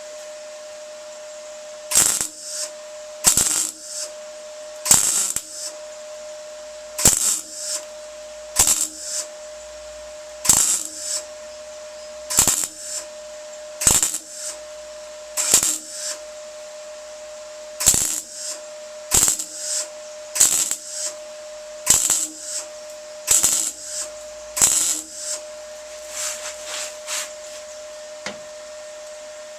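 Electric welder laying short tack welds on a steel body panel: about sixteen crackling bursts of half a second or so, one every one to two seconds, over a steady hum. The welds are kept short and spaced out so the panel doesn't warp and go wavy.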